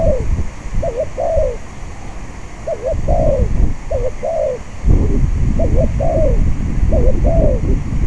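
Spotted dove cooing: a two-part phrase, a short looping note then a longer arched one, given about six times, roughly every second and a half. Heavy wind rumbles on the microphone throughout, strongest in the second half.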